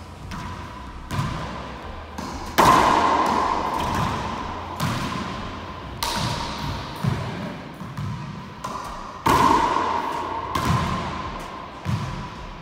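Racquetball rally: sharp smacks of the racquet and the hollow rubber ball striking the walls and floor, each ringing out in the enclosed court. The two loudest hits come about two and a half and nine seconds in, with softer ones between.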